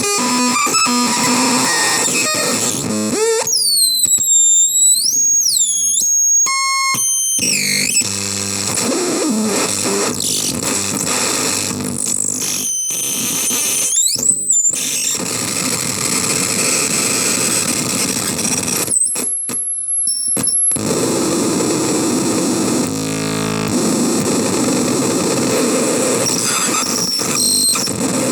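Harsh noise from a CMOS-based noise synth: dense distorted noise broken by squealing tones that swoop up and down in pitch, stuttering stepped tones and brief cut-outs, with a held high whistle about two-thirds of the way through.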